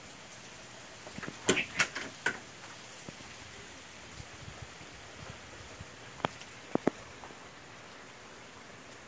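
Steady rain hiss, broken by a quick cluster of sharp clicks about a second and a half in and three more a little past the middle.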